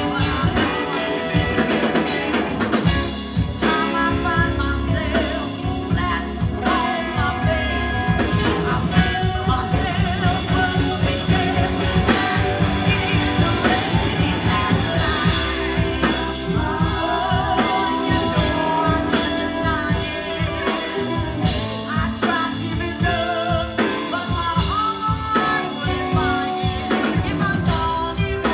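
Live rock band playing: a woman singing lead over electric guitars and a drum kit.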